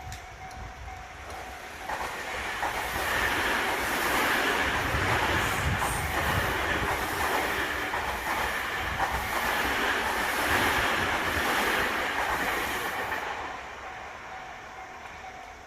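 Electric commuter train passing over a level crossing, its wheels clattering over the rail joints in a steady rhythm. It builds about two seconds in and fades near the end. The crossing's warning bell rings before and after the train, with an even tone.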